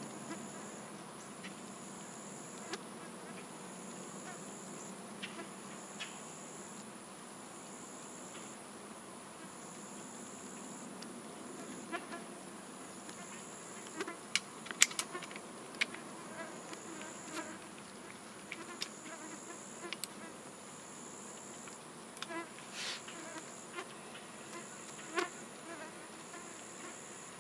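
Insects calling: a steady high-pitched drone overlaid by a pulsing high buzz that repeats about every second and a half. A few sharp clicks come through, the loudest about fifteen seconds in.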